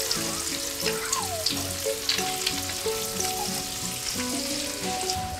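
Hot oil sizzling and crackling steadily as pieces of crappie fillet fry in a skillet on a camp stove.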